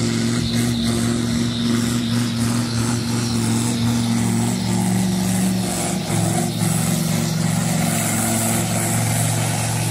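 Blue pulling truck's diesel engine running at full load as it drags a weighted pulling sled, putting out thick smoke. The engine note is steady, then drops to a lower pitch about four and a half seconds in.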